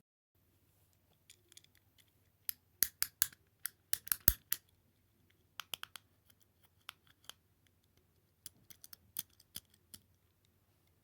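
Sharp irregular clicks from fidget toys being worked by hand. A quick run of loud clicks comes about two and a half to four and a half seconds in, then scattered quieter clicks, then another run near the end.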